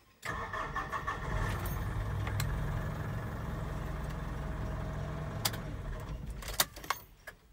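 Mitsubishi 4P10 four-cylinder diesel engine starting and idling steadily, then switched off near the end with a sharp click.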